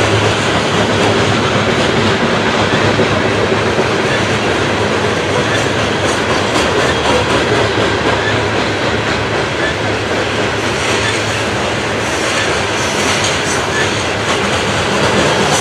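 Loaded CSX coal hopper cars rolling past, their steel wheels on the rails making a loud, steady noise.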